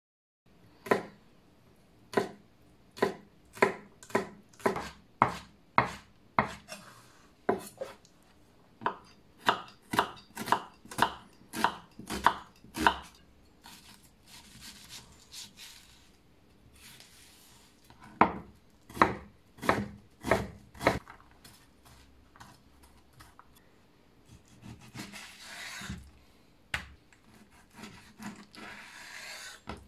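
Chef's knife chopping vegetables, onion among them, on a wooden cutting board: sharp knocks at about one to two a second with pauses between runs. Near the end come softer sounds of the knife slicing through raw chicken thigh.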